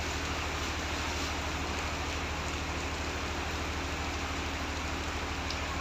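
Heavy rain falling in a steady, even hiss, with a low steady hum underneath.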